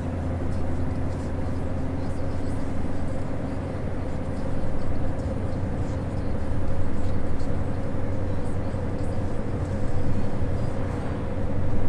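Scania truck cruising on the highway: a steady low engine drone with tyre and road noise.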